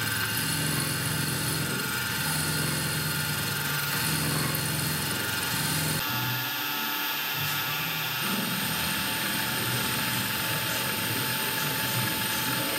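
GOLmatic milling machine running, its end mill cutting into a metal pipe: a steady mechanical hum and whine with the grind of the cut. The sound changes abruptly about six seconds in.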